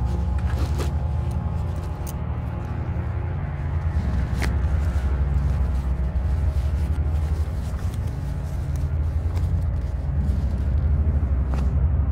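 Low, steady rumbling drone of a suspense film score. A few sharp clicks sound over it, the snap fasteners of a canvas bag being worked open.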